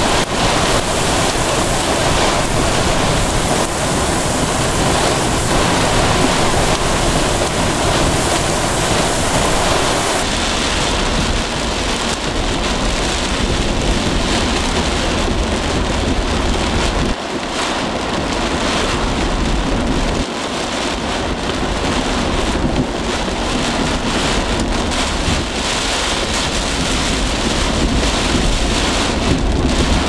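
Strong straight-line thunderstorm winds and heavy driving rain: a loud, steady rush of wind and rain with wind buffeting the microphone. About ten seconds in, the sound changes and loses its highest hiss.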